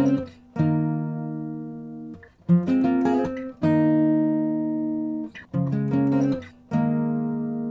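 Background music on acoustic guitar: chords left to ring and fade, with short runs of quick picked notes between them, three times over.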